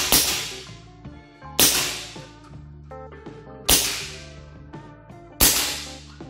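Hatsan Invader 5.5 mm PCP air rifle firing in semi-automatic mode: four sharp shots about two seconds apart, each followed by a short echoing tail.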